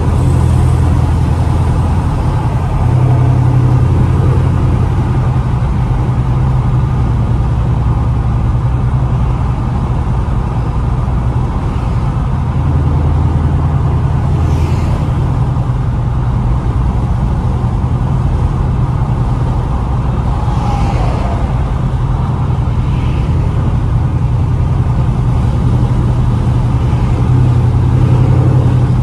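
2016 Camaro SS's 6.2-litre V8 cruising at about 55 mph, a steady low drone heard inside the cabin along with road noise.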